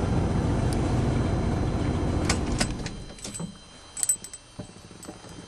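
Chrysler 318 V8 idling warm and smooth, then switched off at the ignition key about two and a half seconds in, the engine sound dying away within a second. Keys on the key ring jingle about four seconds in.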